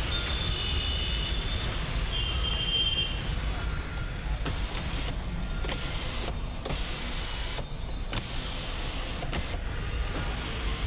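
Electric sunroof motor of a new Mahindra Scorpio running, heard inside the cabin over a steady low rumble.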